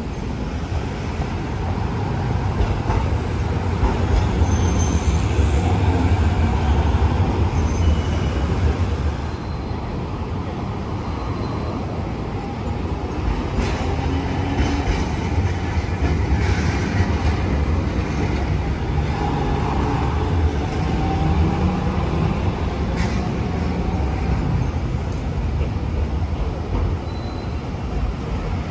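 Hiroshima Electric Railway streetcars and road traffic passing on a city street: a continuous low rumble of trams and motor vehicles.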